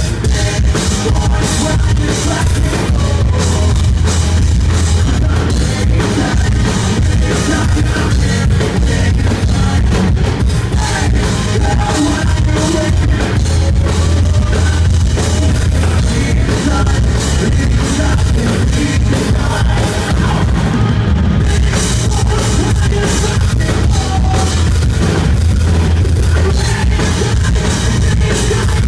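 Rock band playing live: electric guitars, bass and a drum kit, loud and dense without a break.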